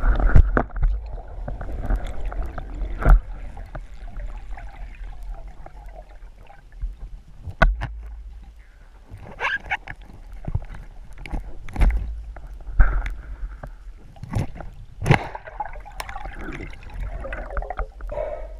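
Underwater water noise during spearfishing: gurgling and sloshing over a steady low rumble, broken by scattered sharp clicks and knocks.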